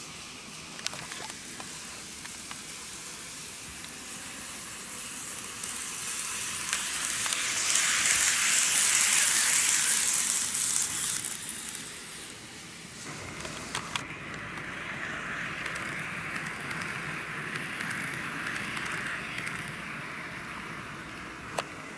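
N gauge model train running on the track, its rolling rattle swelling as it passes closest about eight to eleven seconds in, with a few sharp clicks. A softer stretch of the same crackly rolling sound follows from about fourteen seconds in.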